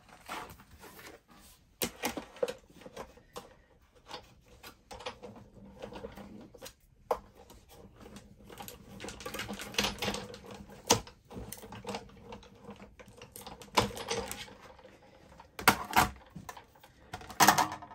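Stiff mat board and die-cut card pieces being handled and laid on a cutting die: irregular clicks, taps and scrapes, with the loudest cluster near the end.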